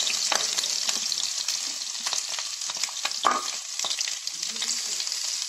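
Malabar spinach stems and potatoes frying in hot oil in a wok: a steady sizzle, with a few sharp clicks and taps scattered through it.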